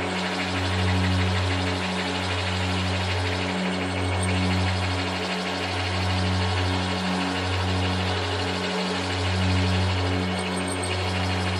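Milling machine running, its end mill cutting into a metal locomotive cylinder block: a steady motor hum that dips briefly about once a second, with the cutting noise on top.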